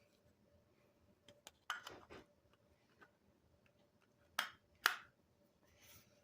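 Scattered sharp clicks and clinks of small metal parts of a disassembled motorcycle starter motor being handled on a workbench, with two louder clinks about four and a half and five seconds in and a brief soft hiss near the end.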